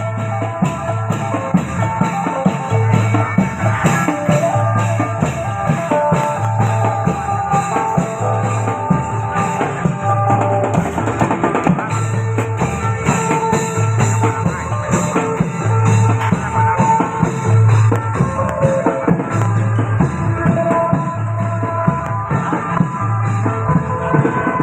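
Isan phin procession music: an amplified phin (northeastern Thai lute) plays a plucked melody over a steady drum beat, with a deep bass note about every two seconds.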